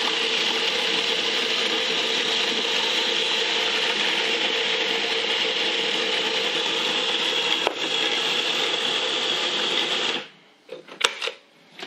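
Electric food processor running steadily, mixing butter into finely ground gingersnap crumbs, with one click about eight seconds in. The motor cuts off suddenly about ten seconds in, followed by a few sharp clicks.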